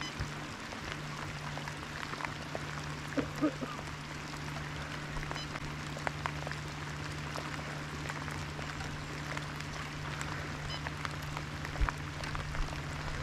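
Rain pattering on a boat's deck and the water around it, with scattered sharper drop ticks over a steady low hum.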